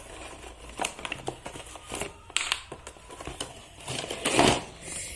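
Toy packaging being opened by hand: irregular crinkling, crackling and small clicks of the box and wrapping, with a louder rustle about four seconds in.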